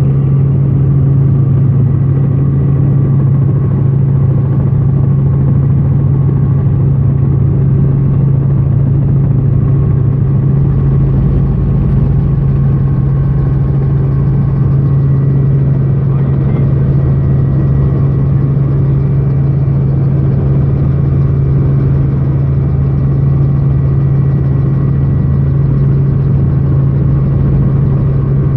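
Helicopter in flight: a loud, steady drone with a strong low hum.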